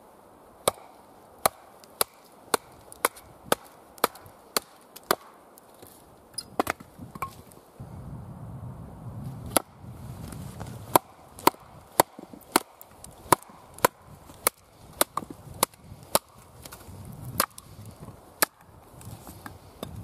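A wooden baton knocking on the spine of a big knife to split a log on a chopping block (batoning). The sharp knocks come about two a second, pause briefly near the middle, then go on less evenly.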